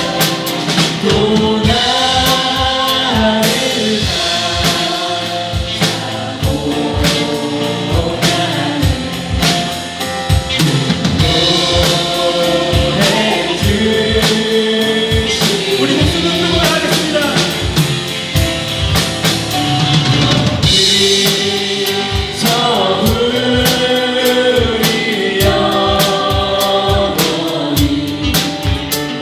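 Live contemporary worship music: voices singing a praise song together over a band with a drum kit keeping a steady beat.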